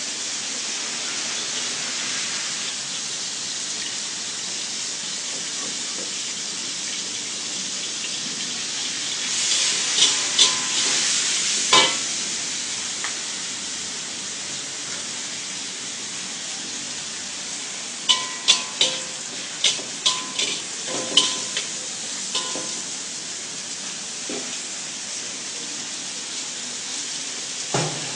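Flat rice noodles sizzling as they fry in a pan, stirred with a metal utensil. The utensil clanks against the pan in two runs of quick strikes: about three near the middle and about eight a few seconds later.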